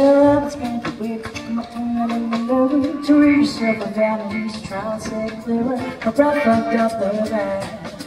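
Live band music amplified through stage speakers: a voice singing long held notes over strummed acoustic and electric guitars.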